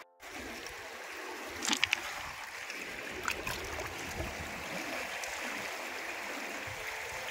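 River water flowing with a steady rush. A few sharp clicks come about two seconds in and once more a second later.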